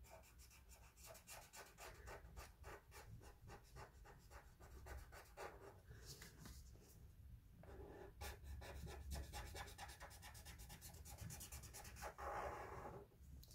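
Felt-tip marker scratching on paper in many quick, short strokes as the duck's cheeks are coloured in, faint.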